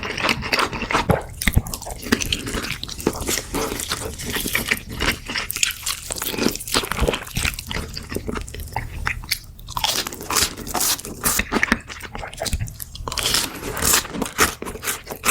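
Close-miked biting and chewing of crispy fried chicken, the coating crunching in a dense run of crackles.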